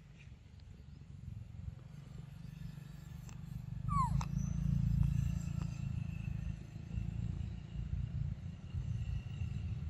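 An animal's short squeal, falling in pitch, about four seconds in, over a steady low rumble that swells at the same time.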